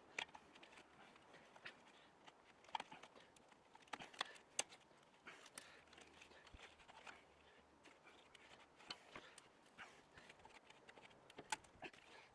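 Faint, irregular light clicks and taps, a few a second at most, with a handful of sharper knocks.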